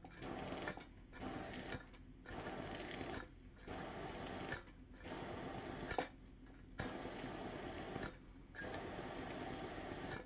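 Hand pump of a Coleman 508A gasoline stove's fuel tank being worked in seven strokes, each a rasping push of air about a second long with a click at its end, pressurizing the tank.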